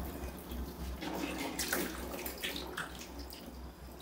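Bath water splashing and trickling as a baby is washed by hand over a basin, in small irregular splashes.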